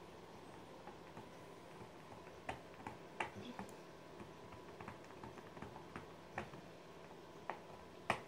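A dog chewing at a fabric toy, its teeth making faint, irregular sharp clicks, with one louder click near the end.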